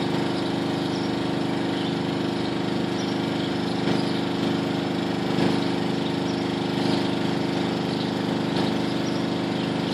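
A machine running steadily with an even hum, with a few faint thuds over it.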